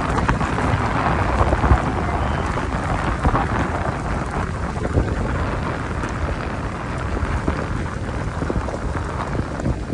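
Vehicle tyres rolling along a gravel road: a steady low rumble with scattered small ticks from the stones.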